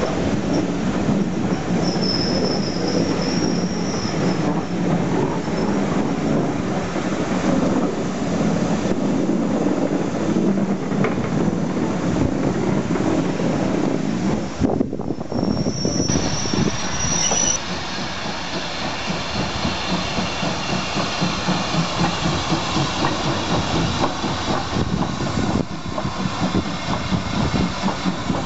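Steam train's passenger coaches rolling past a station platform, the wheels squealing and clicking over the rail joints. About two thirds of the way through it cuts to an 0-6-0 tank locomotive, Nunlow, working as it pulls its train away.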